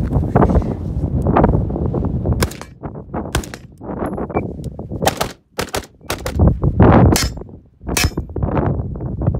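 AR-15 pistol firing a rapid string of about ten shots, some in quick pairs, beginning about two and a half seconds in, over heavy wind buffeting the microphone.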